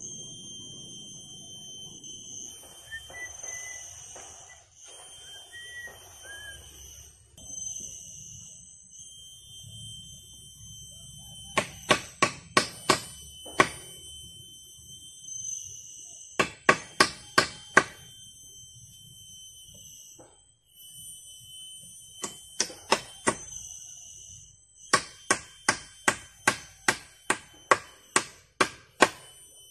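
Steady, high-pitched insect drone, with four runs of sharp knocks of a tool striking wood, several blows a second, starting about twelve seconds in.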